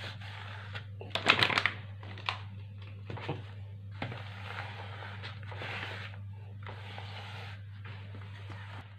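Hands kneading crumbly, floury cookie dough in a plastic bowl: irregular rustling and scraping, with a burst of louder rubbing strokes about a second in and a few short knocks against the bowl. A steady low hum runs underneath.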